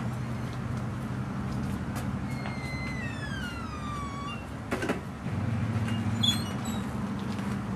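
Bus engine running with a steady low hum. A high whine falls in pitch for about two seconds near the middle, followed by a clunk about five seconds in.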